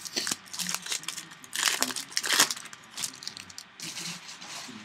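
Crinkling of a foil trading-card pack wrapper and cards being handled: an uneven run of short crackles, loudest about halfway through.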